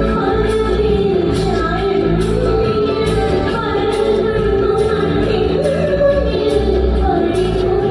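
A woman singing into a microphone with a live light-music band, keyboard and percussion, amplified through a PA system. The sung melody rides over a steady beat.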